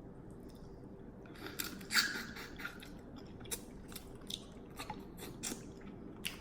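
A person eating close to the microphone: wet chewing, crunches and lip smacks. They start about a second in, are loudest around two seconds in, then come as scattered sharp clicks.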